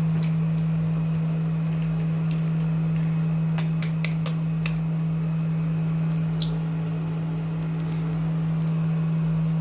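Beaten eggs frying in oil in a pan over raised heat, with scattered sharp pops and crackles, a cluster of them near the middle, over a steady low hum.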